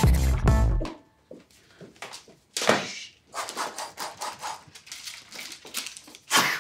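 Music stops about a second in. After it comes a string of short knocks, swishes and breaths from two people play-fighting, one swinging a nunchaku-like weapon.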